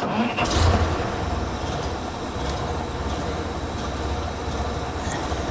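1937 Leyland fire engine's engine just started, louder for a moment in the first second, then settling into a steady idle.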